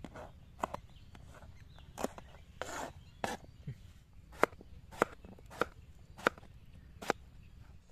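Kitchen knife slicing vegetables on a plastic cutting board, first green chillies, then an eggplant cut into rounds. Each stroke ends in a sharp tap of the blade on the board. The taps come irregularly at first, then evenly about every half second and louder in the second half.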